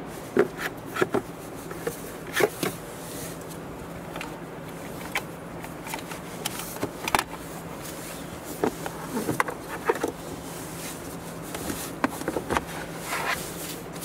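Plastic centre-console trim being pried loose and handled: irregular clicks and snaps of the plastic panel and its clips, over a steady low hum.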